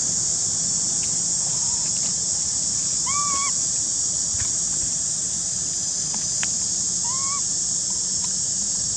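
Steady high-pitched drone of insects, with two short pitched calls that rise and fall, about three and seven seconds in.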